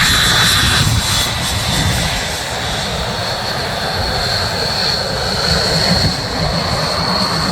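De Havilland Vampire jet flying by, its engine giving a loud steady rushing noise with a high-pitched whine held throughout.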